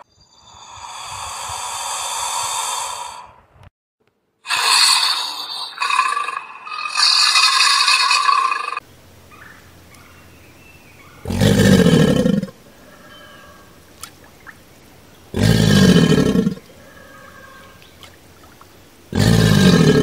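American alligator sounds: long breathy hisses fill the first nine seconds, the first swelling and then cutting off. Then come three short, deep bellows, each about a second long and roughly four seconds apart.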